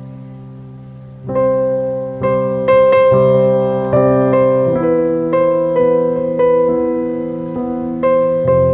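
Background piano music: slow, gentle notes, each struck and left to fade, growing louder a little over a second in.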